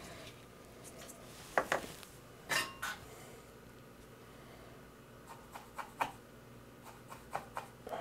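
Small hard tools clicking and clinking on a workbench as they are picked up and handled: a cluster of sharp clinks about one and a half to three seconds in, then lighter ticks near the end.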